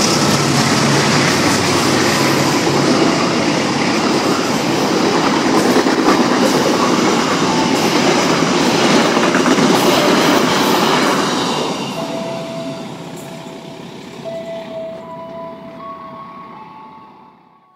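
Passenger train's coaches rolling past close by, a loud steady rush of wheels on rail that fades away after about twelve seconds as the last cars go by.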